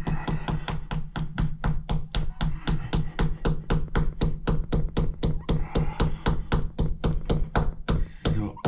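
Plastic wall plug being tapped into a hole drilled through wall tile with the back of a screwdriver handle: a fast, even run of about five light taps a second, over a steady low hum.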